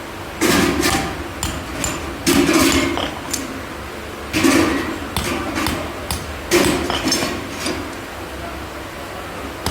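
Hammer blows on metal at an even pace: a heavy strike about every two seconds, with lighter taps in between.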